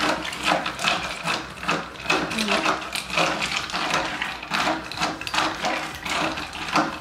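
Ice cubes rattling and clinking in a plastic cup as iced coffee is mixed, in a quick uneven rhythm of about two or three clatters a second.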